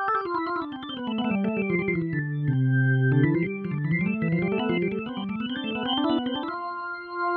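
Korg Nautilus workstation playing an organ sound: a fast run of notes sweeping down into the low register and back up again, ending on a held chord near the end.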